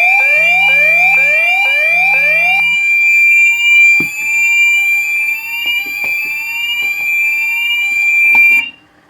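Fire alarm sounders on a Gent Xenex system in full alarm: a steady high tone, rising sweep tones repeating about twice a second, and a pulsed low buzz. The buzz and the strongest sweeps stop about three seconds in, and the rest cut off suddenly near the end.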